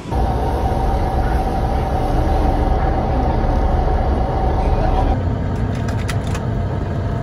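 Intercity coach heard from inside the cabin: a steady low engine rumble with a steady whine over it. The whine stops about five seconds in, and a few sharp clicks follow.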